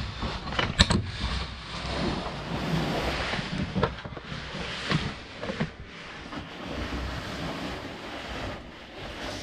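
Heavy breathing close to the microphone, mixed with scraping and rustling of clothing and gear against rock as a caver squeezes through a tight passage, with a sharp knock about a second in and a few softer ones later.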